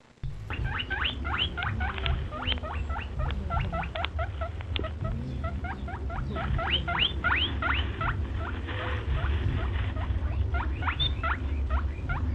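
Newborn baby rabbits squeaking: many short, high squeaks that each rise in pitch, several a second, over a steady low rumble.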